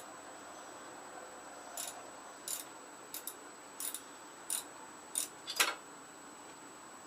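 A run of about eight short metallic clicks from hand tools working on a small engine, roughly two every second, with the last one the loudest.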